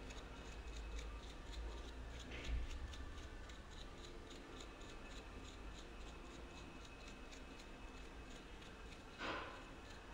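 Brush sweeping metal chips off a milling machine's rotary table and aluminium workpiece in quick, even strokes, about three or four a second, with one louder sweep near the end.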